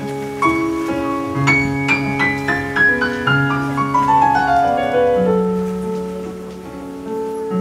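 Slow, gentle piano music: a run of single notes stepping down, about three a second, over held bass notes, settling onto a long low note a little past halfway.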